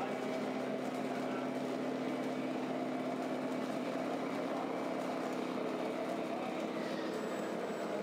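RC model truck's engine-sound module playing a steady truck-engine idle through its small speaker. The even hum holds until near the end, where the tones shift.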